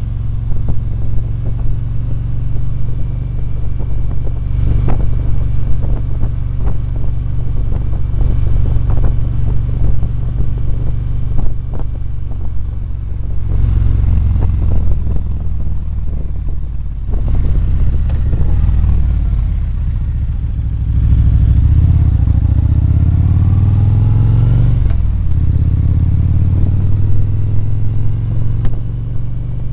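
Motorcycle engine running at road speed under a heavy rumble of wind buffeting the microphone. In the second half the engine pitch rises and falls as the throttle changes, with a falling glide about 25 seconds in.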